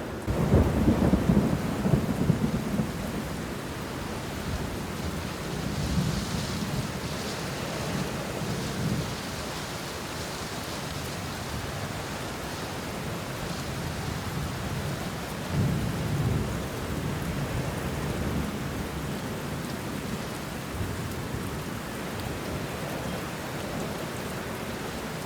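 Steady rain falling on banana leaves and bushes, with thunder rumbling: a loud rumble just after the start, then softer rolls a few seconds in and again past the middle.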